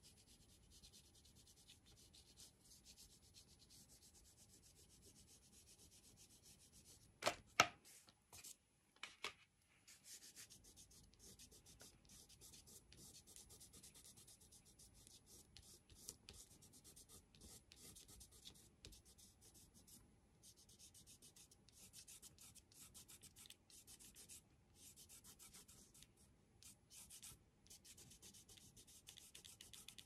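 Faint, quick back-and-forth strokes of crayon rubbing on drawing paper as colour is laid in and blended, in short runs with brief pauses. A few sharp knocks sound about seven to nine seconds in.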